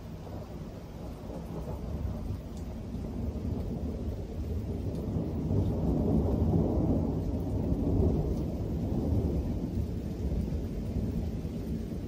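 Thunder rolling: a long, low rumble that builds about a third of the way in, is loudest around the middle and slowly eases off.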